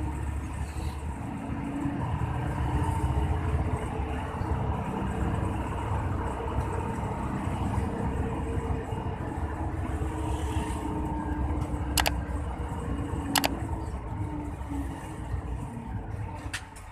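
Bus diesel engine and road noise while driving: a steady low rumble, with two sharp clicks about twelve and thirteen and a half seconds in.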